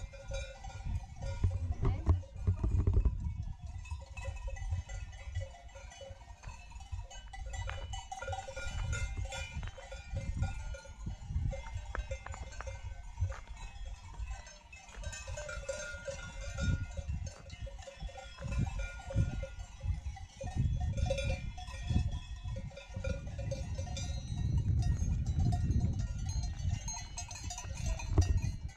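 Bells on grazing alpine pasture livestock ringing on and off as the animals move. Gusts of wind rumble on the microphone underneath.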